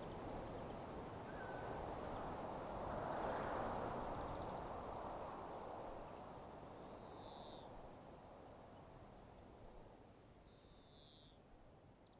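Faint outdoor ambience: a soft rushing noise that swells about three seconds in and then fades away, with a bird calling twice, about seven and eleven seconds in.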